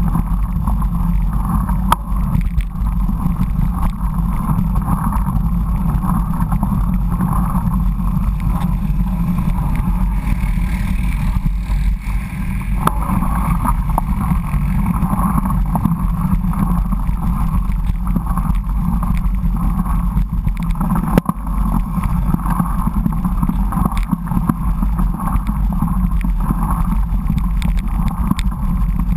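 Steady rumble of riding noise picked up by a bike-mounted action camera: a knobby mountain-bike tyre rolling on asphalt and pavement, with wind on the microphone. There are a few sharp knocks from bumps, one about two seconds in and another about two-thirds of the way through.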